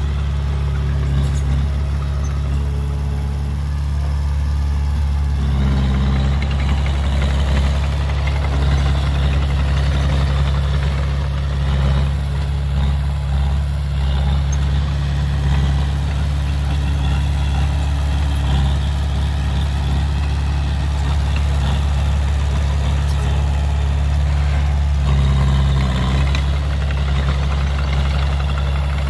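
Heavy diesel engine of earth-moving machinery running with a steady deep drone; the sound grows busier and a little louder from about five seconds in until near the end.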